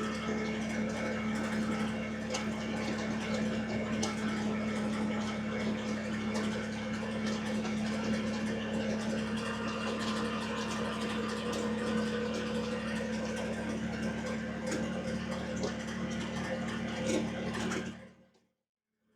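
Kubota BX23S compact tractor's diesel engine running at a steady speed, a constant hum; it fades out briefly near the end and comes back.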